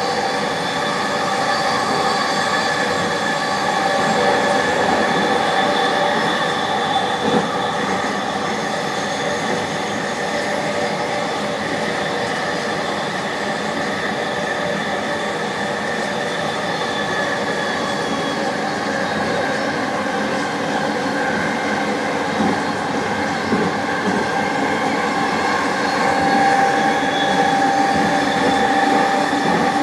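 Vancouver SkyTrain light-metro car with linear induction motors running at speed on elevated guideway, heard from inside the car: a steady rumble with several high whining tones held over it, and a couple of light knocks from the track.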